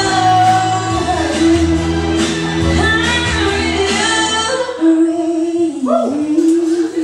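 A woman singing live into a handheld microphone over amplified backing music with a bass beat, holding long notes. About five seconds in the backing music drops away and her voice carries on almost alone.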